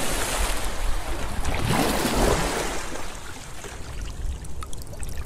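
Water rushing and pouring, swelling about two seconds in, then fading to scattered drips near the end.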